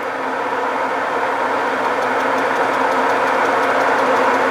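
Metal lathe running with a steady machine hum that grows gradually louder, joined by faint rapid ticking from about two seconds in.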